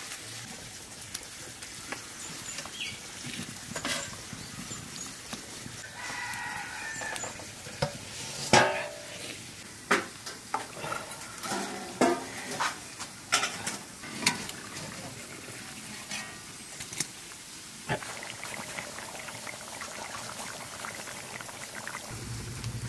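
Brinjal curry sizzling and simmering in a metal kadai once water has been poured over it, with sharp metal clinks and knocks from a utensil and lid on the pan. A chicken crows about six seconds in.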